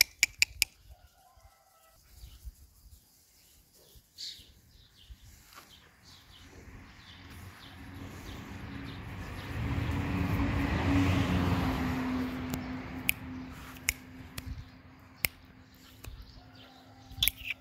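Birds chirping in the background while a passing engine swells slowly, loudest a little past the middle, then fades, with a low steady hum under it. A few sharp clicks sound at the start and again near the end.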